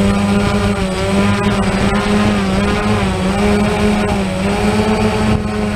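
Drone's motors and propellers buzzing steadily in flight, the pitch wavering slightly.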